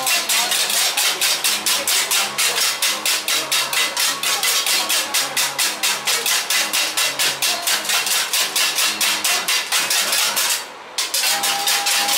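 A group of hand-held folk instruments played in a fast, even beat of sharp clacking strikes, about five a second, with a brief break near the end.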